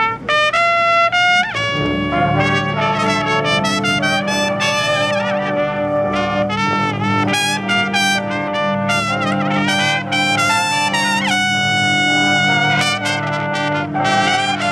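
Drum and bugle corps brass line playing loudly: a moving melody of horn lines over held low chords, coming in abruptly at the start.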